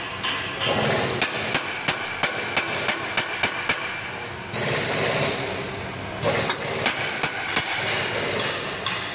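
Hammer blows on a metal part under the car, a run of sharp strikes about three a second, then a stretch of rushing noise around the middle, then a few more strikes. The part is being tapped into place because pressing alone won't seat it precisely.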